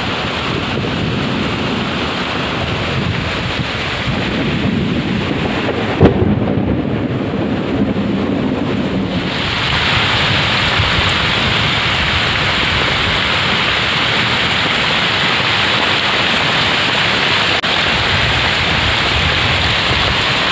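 Heavy rain pouring steadily. About six seconds in a sharp crack of thunder is followed by a low rumble for a few seconds, and from about ten seconds the rain gets louder.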